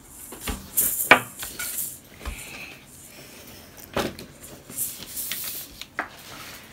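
Small plastic toy pieces being handled, clicking and rubbing, with three sharper clicks about a second, four seconds and six seconds in.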